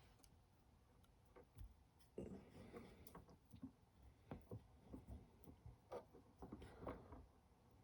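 Near silence broken by faint, irregular small clicks and taps of hand-handling at a work surface, more frequent from about two seconds in.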